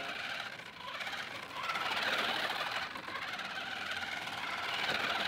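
A 1/10-scale RC car being thrown into drifts: its ordinary tyres scrub and skid on rough tarmac along with the drivetrain's whine, a noisy hiss that swells and fades a few times as the car slides and grips.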